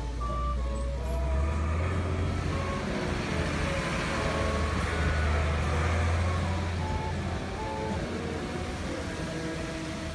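A military ambulance truck's engine runs with a low, loud drone as it drives slowly past, swelling about a second in and easing off near the end. Instrumental music plays underneath.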